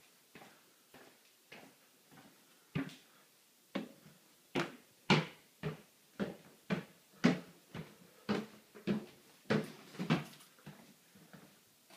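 Footsteps on stairs, about two steps a second, faint at first, loudest in the middle, then fading near the end.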